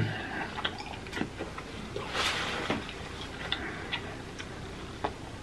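Close-miked chewing of a juicy piece of beef steak: soft, wet mouth clicks and smacks, with a short louder noisy rush about two seconds in.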